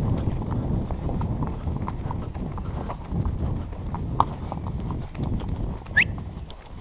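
Horses' hooves trotting on a soft dirt forest track, a quick, uneven clip-clop over a low rumble of movement, easing off toward a walk near the end. A short rising squeak about six seconds in.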